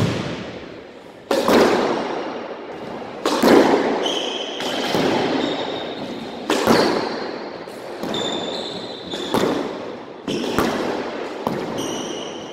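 Squash ball shots: sharp cracks of the ball off the racket and the court walls, each ringing on in the enclosed court, every one to two seconds. Short high squeaks of sneakers on the wooden court floor come between the shots.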